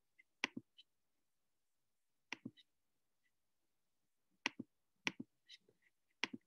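Sharp clicks, mostly in close pairs about a tenth of a second apart, coming about five times at irregular intervals with near silence between.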